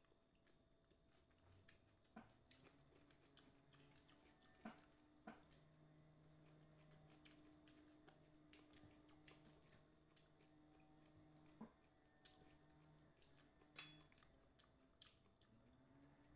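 Faint eating sounds: quiet chewing and scattered small clicks and taps of fingers and food on plates, over a low steady hum that comes and goes.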